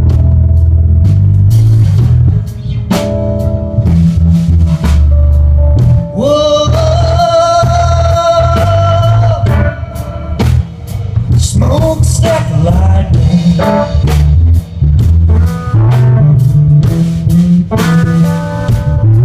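Live blues trio playing: electric guitar over bass guitar and a drum kit beat. About six seconds in, a long wavering high note is held for several seconds.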